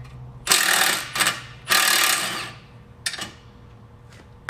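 Cordless impact wrench hammering on the nuts holding the lower control arm to the steering knuckle, undoing them. Two bursts of under a second each, then a brief third.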